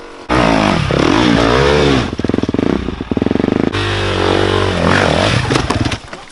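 Off-road dirt bike engine revving hard, the revs rising and falling, with a stretch of rapid stuttering throttle in the middle. It stops shortly before the end.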